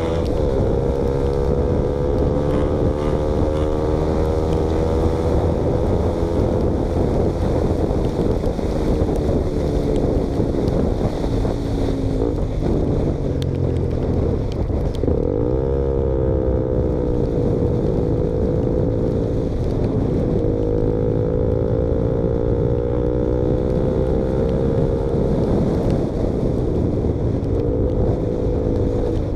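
KTM Duke motorcycle running with its exhaust baffle removed, ridden along with the engine note slowly rising. The note dips sharply and climbs back about halfway through, and shifts down again near the end. Wind buffets the microphone throughout.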